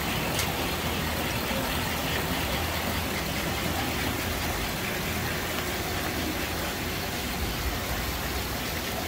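Steady mechanical running noise of an operating toy train layout: toy trains and motorised accessories running on the tracks, an even rumble and whir with no distinct events.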